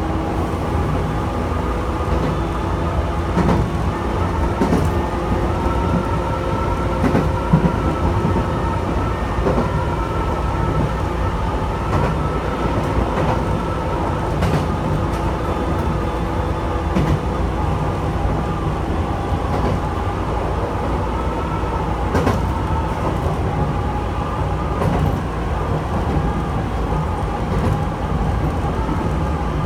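Chichibu Railway electric train running, heard from inside the leading car: steady rumbling running noise with a faint steady whine and scattered clicks of the wheels over rail joints.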